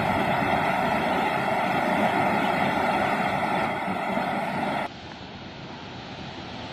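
Waterfall rushing steadily, a continuous roar of falling water. About five seconds in it cuts off suddenly and a much quieter steady rushing noise follows.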